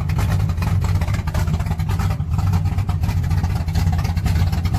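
Chevrolet 305 small-block V8 with a thumper cam running steadily at idle after a loose rocker arm was tightened, now firing on all eight cylinders. A light tick remains, which the owner takes for an exhaust header leak.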